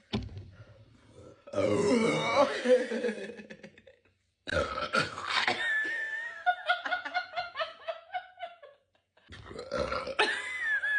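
A person burping loudly: a long, rough burp about a second and a half in, then more burps, with pitched sounds breaking into rapid short pulses like laughter in between.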